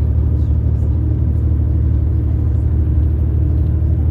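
Steady low engine and road drone of a moving tour bus, with a few faint steady tones above it.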